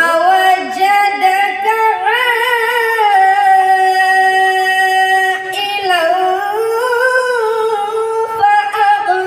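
A boy's voice chanting Quran recitation in the melodic, drawn-out tajweed style through a microphone, holding long notes that glide slowly up and down, with a short break about halfway through.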